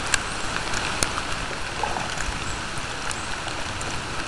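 Rain coming down hard onto open pond water: a steady hiss dotted with sharp ticks of single drops.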